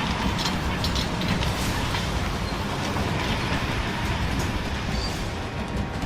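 Cat D7 and D8 crawler dozers dragging a heavy chain through brush and trees: steady diesel and track rumble with a running clatter of knocks and metallic rattling.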